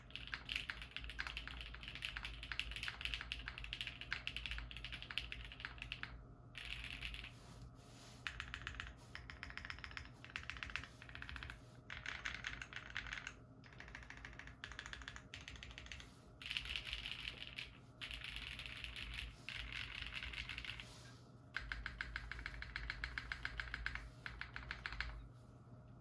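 Typing on a Knew60 mechanical keyboard with Kailh Stem Black switches: rapid keystrokes in runs of a few seconds, broken by brief pauses.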